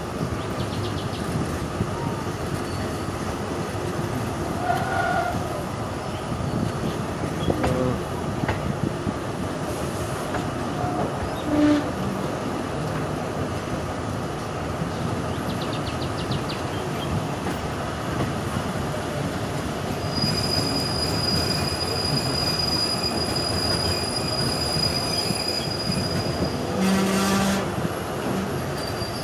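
Ordinary passenger train running on the rails, a steady rumble of wheels and carriages. About two-thirds of the way in, the wheels squeal high and steadily for several seconds. Near the end comes a short horn blast.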